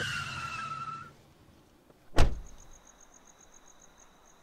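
A car pulling up with a short falling squeal and engine rumble, then a car door slamming shut once about two seconds in. After it comes a faint, fast, even chirping like crickets.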